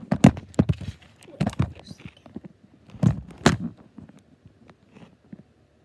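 Irregular knocks and thumps from a handheld phone being moved around, rubbing and bumping against the microphone. There is a cluster in the first two seconds and another about three seconds in, then they die away.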